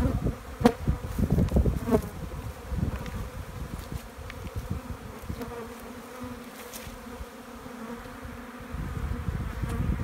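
Honeybees buzzing in a steady hum around opened hive boxes, with many bees flying close to the microphone. A low rumble on the microphone is heard in the first two seconds and again near the end.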